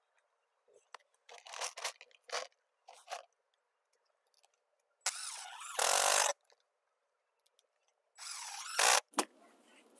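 Cordless drill driving drywall screws into plastic bender board edging: two short runs of the motor, one about five seconds in that gets louder as the screw goes home, and another near the end, after a few seconds of handling noises.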